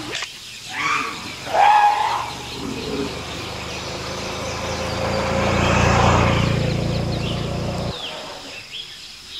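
Motorcycle engine running as the bike rides past, a steady drone that grows louder to a peak and cuts off suddenly near the end. A couple of short calling voices come before it, near the start.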